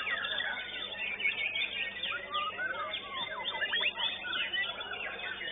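White-rumped shamas (murai batu) singing at once in a songbird contest: a dense, unbroken mix of quick overlapping whistles and chirps.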